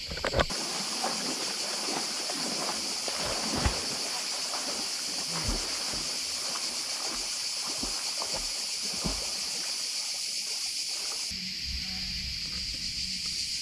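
River water splashing and lapping at the bank in irregular soft strokes, over a steady high-pitched drone of summer insects. The splashing stops about eleven seconds in and the insect drone carries on.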